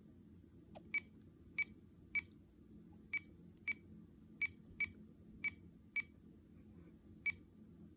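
About ten short, identical key-press beeps from a FrSky X20 Pro radio transmitter as letters are tapped on its touchscreen keyboard with a stylus. The beeps come at an uneven typing pace, with a longer gap near the end.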